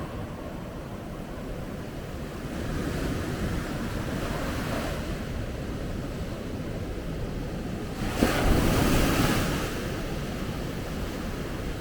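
Sea waves washing onto a beach: a steady rush of surf that swells a little a few seconds in, then a wave breaks loudly about eight seconds in and washes back down.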